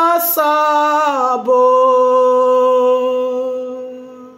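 A woman singing a gospel song unaccompanied: a short sung phrase, then one long held note about a second and a half in that fades away near the end.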